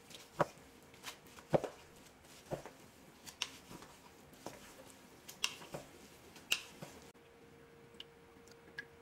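Two wooden spoons tossing sauce-coated glass noodles in a stainless steel bowl: irregular clicks and knocks of wood against the metal, about one or two a second, which die away about seven seconds in.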